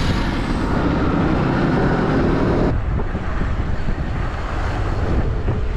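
Road traffic noise with wind rumbling on the microphone, heard from an e-bike riding through city streets; the sound changes abruptly about two and a half seconds in.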